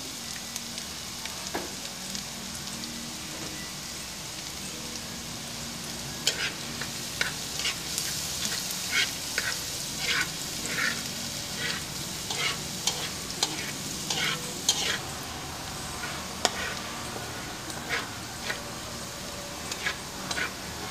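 Minced garlic frying in hot oil in a nonstick wok with a steady sizzle. A spatula stirs and scrapes it, and sharp clicks come thick and fast from about six seconds in.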